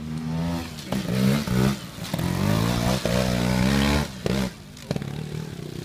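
Trials motorcycle engine revving in rising bursts under load on a steep dirt climb, the longest pull from about two to four seconds in, then dropping back to a low idle with a couple of sharp knocks.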